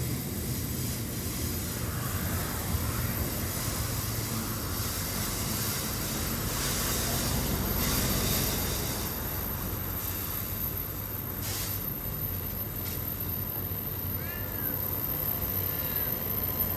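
Freight train's wagons rolling past on the track: a steady low rumble of wheels on rail, swelling about halfway, with two short sharp clicks a little later and a couple of brief high chirps near the end.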